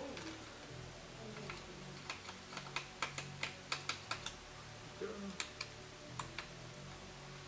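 Light, irregular clicks and taps of a Phillips screwdriver and small screws against a laptop's plastic case as the screws are undone, thickest from about two to four and a half seconds in.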